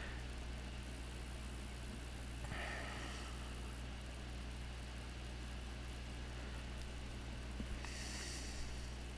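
Steady low electrical hum under a background hiss, with faint rustles of hands handling a thin wire about two and a half seconds in and again near the end.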